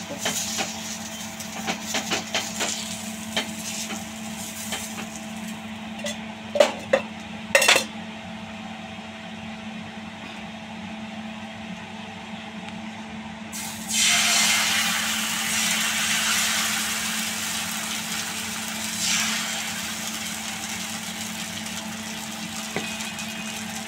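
Hot oil sizzling faintly on a cast-iron tawa as a halved onion on a skewer is rubbed over it, with light scraping and a couple of sharp clacks about seven seconds in. About fourteen seconds in, rice batter is poured onto the hot tawa and a loud sizzle starts suddenly, then slowly dies down.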